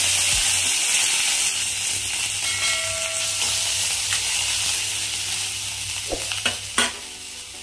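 Curry leaves, green chillies and ginger sizzling in hot ghee in a kadai with the tempering spices, the sizzle slowly dying down as they are stirred. Two sharp ladle knocks against the pan near the end.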